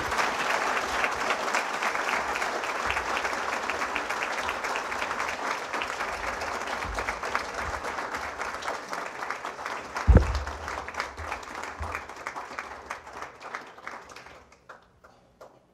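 Audience applauding, the clapping dense at first, then thinning and dying away to a few last claps near the end. A single loud thump about ten seconds in.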